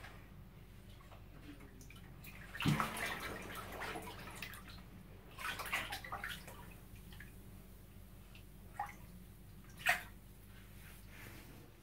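Bathwater sloshing and splashing as a child moves her hands and legs in a filled bathtub. The loudest splash comes about three seconds in and another around six seconds, with two short sharp splashes near the end.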